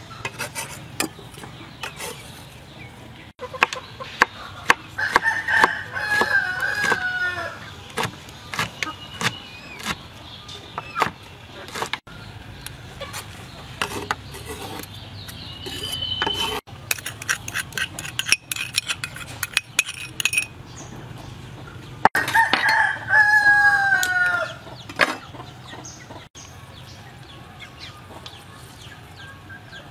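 A rooster crows twice, a drawn-out call falling in pitch at its end, about five seconds in and again a little past twenty seconds in. Between and under the crows come scattered sharp clicks and taps of food and utensils going into a bowl.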